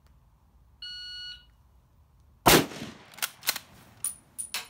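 Shot-timer beep lasting about half a second, then a single .30-06 rifle shot from an M1903 Springfield, followed by several sharp metallic clicks as the bolt is worked.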